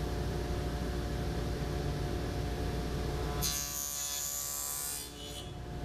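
Table saw running with a dado blade, a steady motor hum; about three and a half seconds in the blade bites into a scrap plywood piece pushed through on the box-joint jig, a rasping cut of about a second and a half cutting a finger notch, before the saw returns to its free-running hum.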